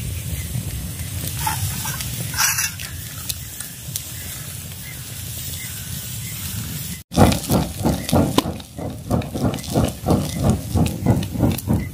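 Wood fire crackling and hissing, with the skewered fish sizzling over the flames. After a cut about seven seconds in, a rhythmic whooshing, about two or three beats a second, as the fire is fanned.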